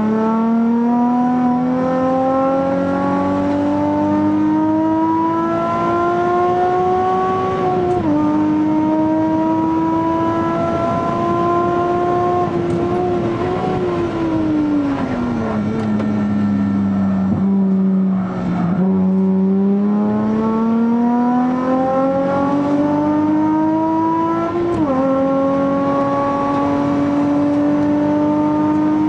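Nissan Z's V6 engine heard from inside the cabin at full throttle on track, its note climbing through the revs with sharp drops at upshifts about a third of the way in and near the end. About halfway through the pitch falls away as the car slows for a corner, then it climbs again as the car accelerates out.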